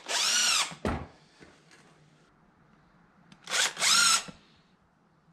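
Cordless impact driver running in two short bursts about three seconds apart, its motor whine rising and falling each time, as it screws a carbide-tipped stud (ice screw) into an ATV tire's tread lug.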